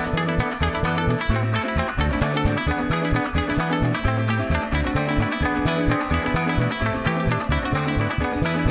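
Instrumental llanera (joropo) music with no singing: a llanero cuatro strummed in a quick, steady rhythm over harp, maracas and a bass line.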